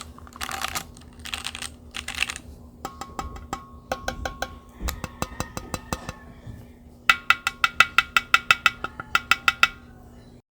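Keychron Q1 mechanical keyboard being typed on. Keystrokes come with a faint metallic ring, then a fast run of sharp, loud clacks near the end, and the sound stops abruptly.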